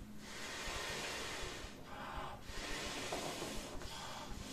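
A man blowing long breaths by mouth into the open vent of an inflatable Nemo Fillo camping pillow: two long rushing blows with a short pause between, filling the pillow with air.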